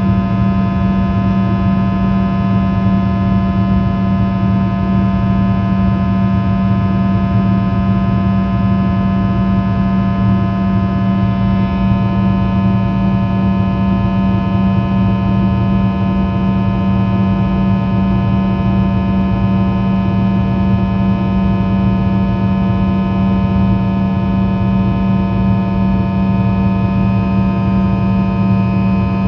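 Rolls-Royce Tay 650-15 turbofan of a Fokker 100 heard from inside the cabin beside the rear-mounted engine: a steady, loud drone with a strong low hum and many steady whining tones above it.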